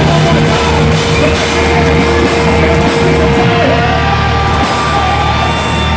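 Loud heavy rock music playing continuously.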